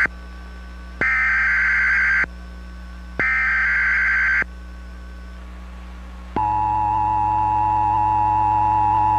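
Emergency Alert System header data bursts on a radio broadcast: two harsh, buzzing digital bursts about a second long each, a second apart, which encode the start of an alert. After a pause of about two seconds the steady two-tone EAS attention signal starts, a little past six seconds in, and holds.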